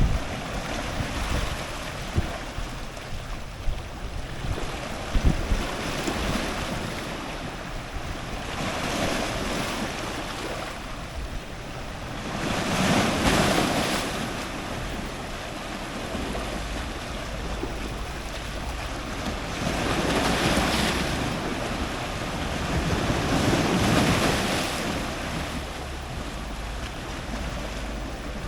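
Ocean surf breaking on rocks close to the waterline, the wash swelling and fading, with three louder waves surging in the second half. Sharp crackles of splashing come in the first few seconds, over a low rumble of wind on the microphone.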